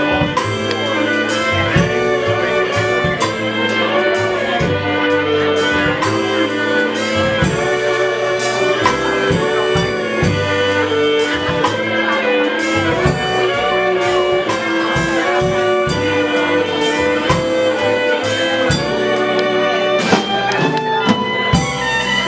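Instrumental music with a steady beat, horns and strings playing melody lines over drums.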